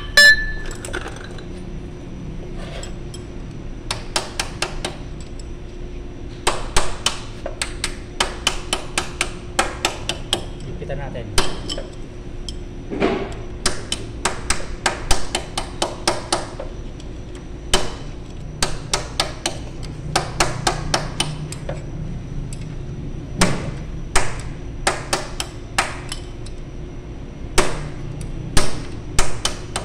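Hammer striking a metal punch held against a forklift's wheel hub, most likely driving the hub lock nut. The strikes come in runs of quick metallic taps, several a second, with short pauses between runs, and one loud ringing strike right at the start.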